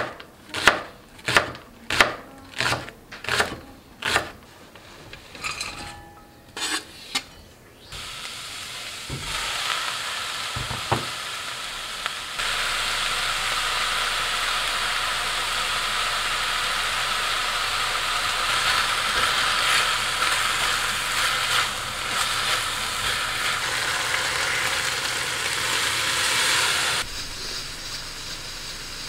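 A kitchen knife chopping green onions on a wooden cutting board, about a dozen even strokes roughly one and a half a second apart. Then kimchi and vegetables sizzling as they stir-fry in a stainless steel pan, growing louder about twelve seconds in and dropping suddenly to a quieter hiss near the end.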